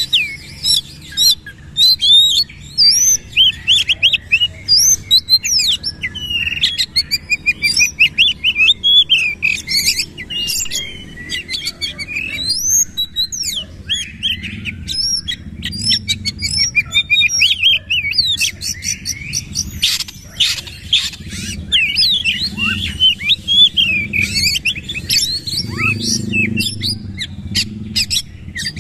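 Oriental magpie-robin singing without a break: a fast, loud, varied stream of whistled slurs, trills and sharp chattering notes, the rapid "nembak" (firing) delivery that kacer keepers prize.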